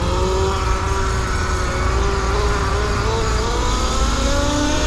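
Rawrr Mantis electric dirt bike's motor whining while riding, its pitch wavering with speed and rising a little near the end, over a steady low rumble.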